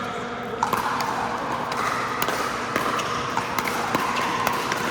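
A string of sharp, irregularly spaced pops of pickleball paddles striking the hard plastic ball, over a steady background din.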